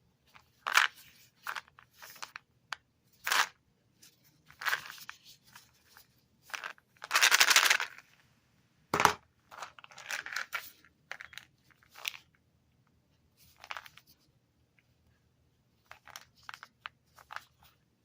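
Cough drop packaging being torn and crinkled open, in a series of irregular short rips and rustles. A longer tear lasts about a second, and a sharp knock comes about nine seconds in.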